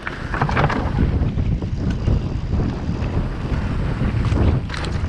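Wind buffeting the microphone during a fast downhill mountain-bike descent, a heavy rumble with frequent clattering knocks from the bike over rough ground.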